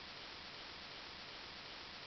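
Steady, even hiss of the recording's own noise; no eating or utensil sounds stand out.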